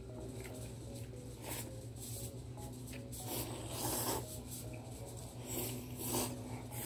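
Instant shoyu ramen noodles being slurped in a few short noisy bursts, the longest about halfway through.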